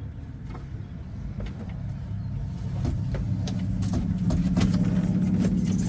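A steady, low motor hum that grows louder from about halfway through, with scattered light clicks and knocks.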